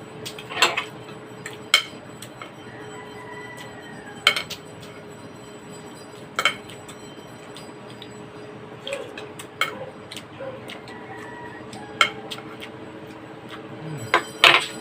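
Metal cutlery clinking against dishes during a meal, sharp clinks every one to three seconds, about nine in all, with two close together near the end.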